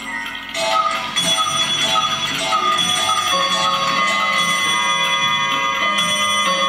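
Music with bell-like chiming tones: a quick run of repeated notes, then overlapping notes left ringing.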